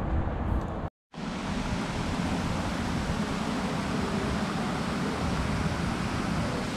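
Park fountain's jets splashing into the basin, a steady rushing hiss of falling water, broken by a moment of silence about a second in.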